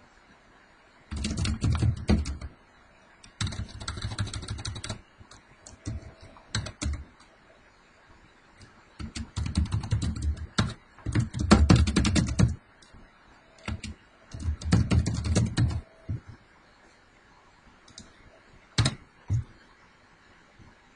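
Typing on a computer keyboard in several quick bursts with short pauses between them, then a few single clicks near the end.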